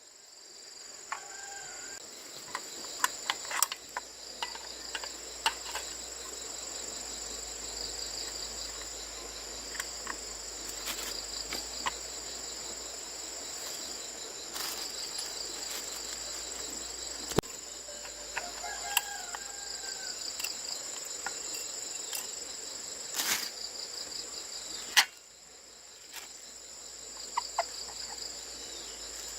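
Insects chirring steadily at a high pitch, with scattered sharp clicks and knocks, the loudest near the end.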